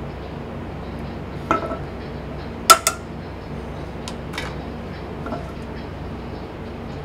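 Hammered aluminium yukihira saucepans knocking against the metal grates of a gas range as they are handled: a few scattered metallic clinks, the loudest a sharp double clink about two and a half seconds in, over steady kitchen noise.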